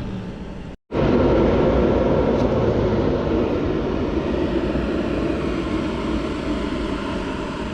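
A vehicle engine running steadily with a dense low rumble. A short dropout about a second in gives way to the same rumble, louder.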